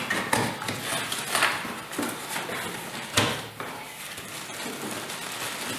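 Cardboard pump box being opened by hand: flaps and packaging rustling and scuffing, with several sharp knocks, the loudest about three seconds in.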